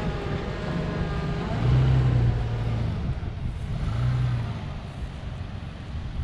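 A vehicle's engine running, its pitch bending up and down early on and swelling louder twice, about two and about four seconds in, as it is revved.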